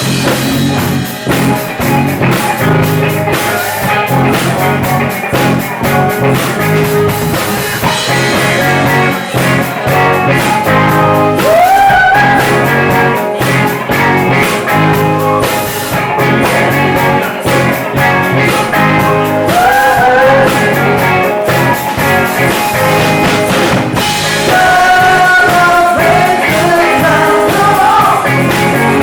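Live cover band playing a song at full volume, with a lead vocalist singing over drum kit, guitar and bass.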